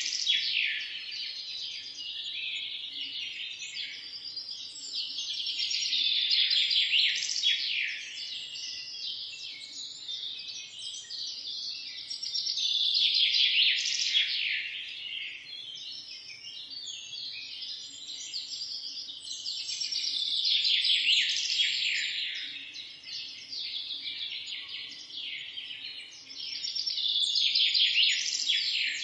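Morning chorus of songbirds: dense, rapid chirping and trilling that swells louder about every seven seconds and thins out in between.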